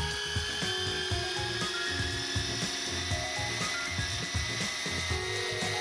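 Small electric coaxial RC helicopter running on a table, its motors and rotors giving a steady high whine while it stays grounded, under background music.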